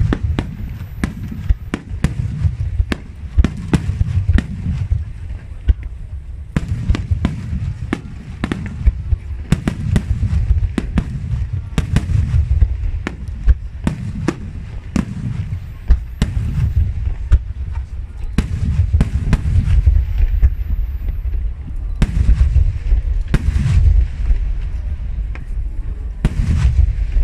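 Aerial firework shells bursting in a rapid, continuous barrage: many sharp cracks over a steady deep booming that never lets up.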